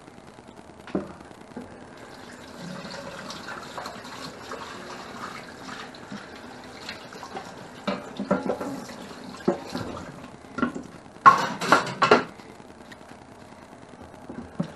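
Kitchen tap running into a stainless steel sink while a wooden cutting board is rinsed under it. Knocks and clatter of the board and a pot against the sink come in from about halfway, loudest near the end.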